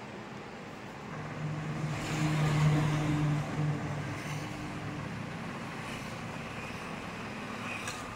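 A motor vehicle passing on the street, its engine hum swelling about a second in, loudest around the three-second mark, then fading away over steady traffic noise.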